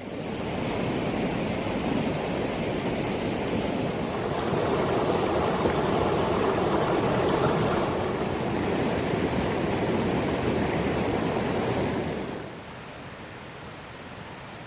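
Steady rushing noise, even and without any tone or clicks, that drops sharply to a quieter hiss about twelve seconds in.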